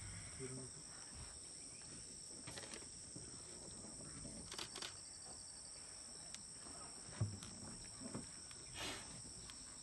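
Steady high-pitched drone of a forest insect chorus, with a few faint clicks and a soft thump about seven seconds in.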